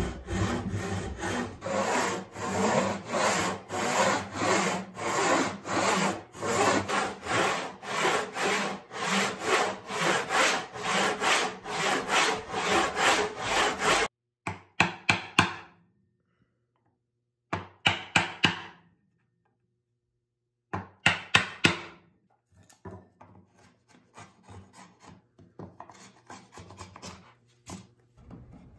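Hand backsaw crosscutting a pine board in steady strokes, about two a second. The sawing stops abruptly halfway through, followed by three short runs of wood-rasping strokes separated by silence and then fainter scattered strokes.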